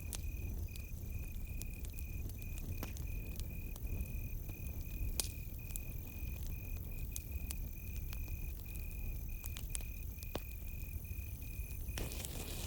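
Campfire crackling, with scattered sharp pops over a low steady rumble, the loudest pop about five seconds in. Behind it, crickets chirp in a steady, even pulse.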